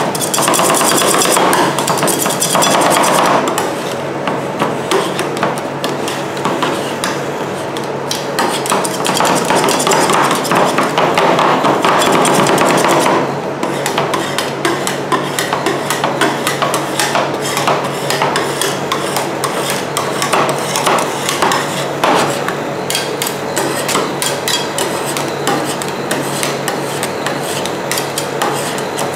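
Two steel spatulas rapidly chopping and tapping on the frozen steel plate of a rolled-ice-cream pan, with scraping strokes, as mix-ins are chopped into the cream base. The strikes come thick and fast as a continuous metallic clatter, louder for the first few seconds and again in the middle.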